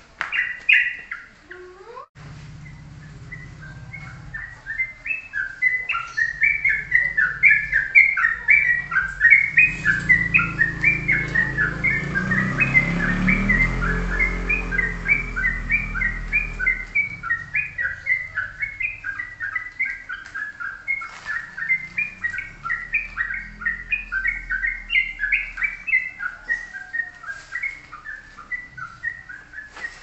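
Songbird singing a long unbroken run of short, rapidly repeated chirping notes, about three a second, in the rapid-fire 'tok-tok' style used as a lure song to get other caged birds singing. A low rumble sits underneath in the middle stretch.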